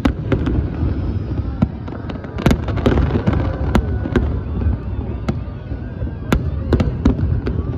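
Fireworks going off: many sharp bangs and pops at irregular intervals, with a denser cluster a few seconds in, over a continuous low rumble of further bursts.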